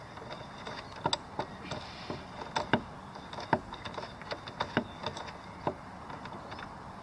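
Hand ratchet with a 10 mm socket clicking in short, irregular strokes while working on a stubborn bolt that won't back out.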